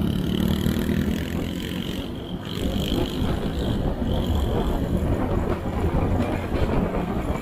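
Motorbike riding over a rough off-road track: a steady rumble and rattle with wind noise on the microphone.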